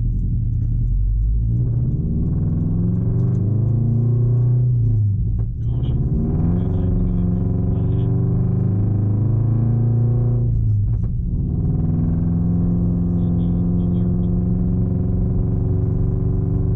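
Subaru BRZ's flat-four engine pulling through the gears: the revs climb, drop at a gear change about five seconds in, climb again, drop at a second shift about eleven seconds in, then hold steady.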